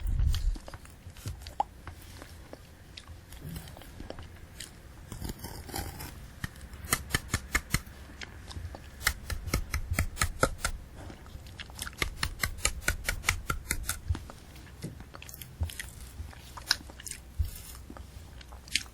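Close-miked chewing of a candy apple: the hard sugar shell cracking and the apple flesh crunching in quick runs of sharp crackles, densest through the middle. A low thump comes right at the start.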